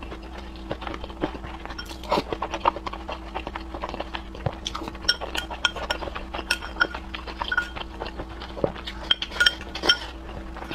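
Close-up eating sounds: chopsticks clinking against ceramic bowls, several clinks ringing briefly, with mouth noises of sipping from a bowl and chewing.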